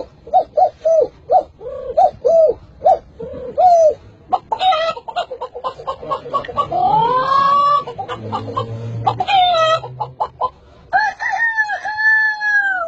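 A man vocally imitating chickens: a string of short, hen-like clucks for about four seconds, then squawking calls with a rising pitch, and a long, wavering rooster crow near the end.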